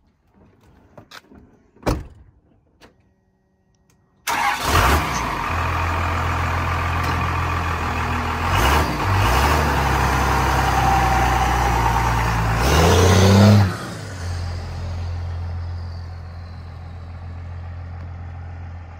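A truck door shuts, then a second-generation Dodge Ram 2500's 5.9-litre Cummins inline-six turbo diesel starts suddenly about four seconds in and runs steadily. Its pitch rises twice as the truck pulls off, then the engine sound drops and fades as it drives away.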